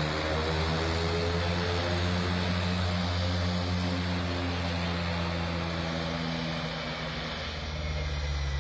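Twin-engine turboprop airplane rolling out on the runway after landing: a steady propeller drone whose pitch sinks slowly as the plane slows.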